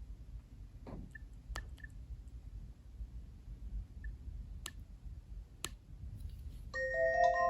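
Scattered faint clicks and taps with a few short, faint beeps as the Nokia 7710 is operated. Near the end, one of its built-in ringtones starts playing from the phone's speaker, a melody of clear bell-like notes.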